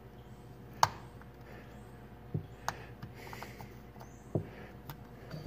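Plastic round multi-pin wiring-harness connector being lined up and threaded together by hand, giving several short sharp clicks and knocks, the loudest about a second in, over a faint steady hum.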